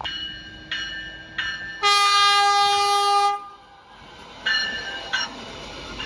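NJ Transit River Line Stadler GTW diesel light-rail car sounding its multi-tone horn for a grade crossing: two short blasts, one long blast of about a second and a half, then two more short blasts. The car's low rumble rises near the end as it draws close.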